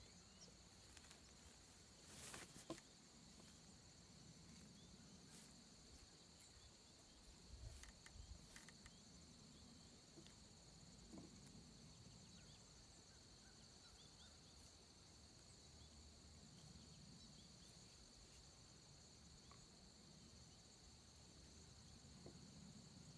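Near silence, with a faint steady chirring of crickets throughout. A few soft knocks come about two seconds in, around five seconds, and near eight seconds.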